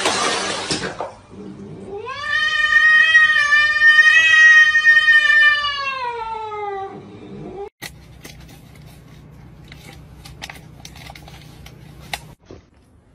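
A cat's long drawn-out yowl lasting about five seconds, rising at the start and sliding down in pitch at the end. After it comes a quieter low steady hum.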